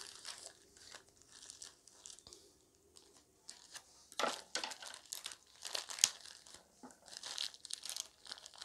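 Plastic courier mailer bag crinkling and tearing as it is cut with scissors and pulled open by hand: faint at first, then a run of loud crinkles from about four seconds in, with one sharp click in the middle.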